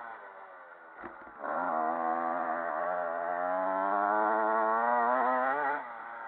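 Motocross bike engine heard through a bike-mounted camera. It runs low off the throttle at first, with a thump about a second in. Then it comes back on the throttle loud, its pitch slowly rising, and drops off sharply near the end as the rider rolls off.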